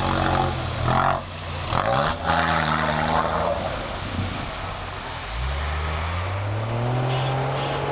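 Engine of an off-road 4x4 revving under load as it churns through a muddy ditch, the revs rising and falling with bursts of throttle, then climbing steadily and holding high over the last few seconds.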